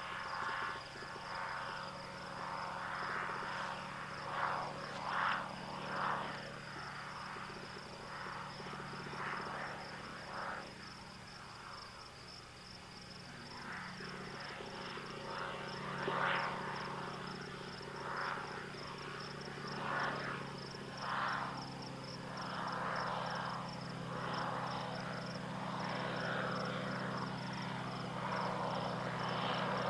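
Outdoor evening insect chorus: a steady high pulsing trill with repeated calls rising above it. Under it runs a steady low drone from the ultralight's engine, which grows louder over the last several seconds.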